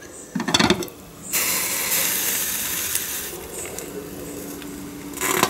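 Glass lid of a slow cooker clattering as it is lifted off a pot of cabbage soup that has come to the boil, followed by about two seconds of hissing, and another clink near the end.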